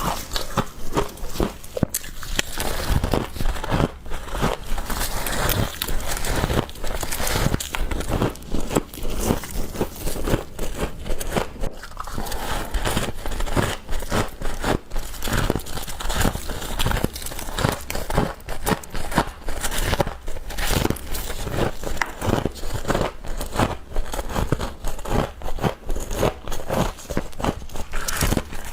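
Close-up biting and chewing of frost: dense, rapid crunching and crackling as mouthfuls of packed ice frost are bitten and chewed.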